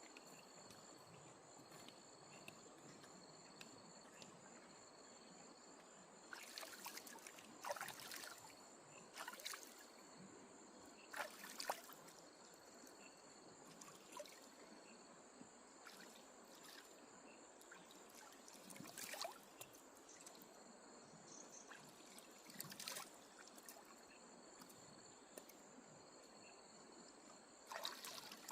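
Faint outdoor quiet with a steady high insect chirring, one chirp about every second, broken by scattered short knocks and rustles.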